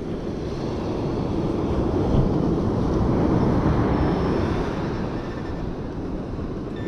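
Rushing noise of storm surf and wind on the beach. It swells to its loudest about halfway through, then eases off.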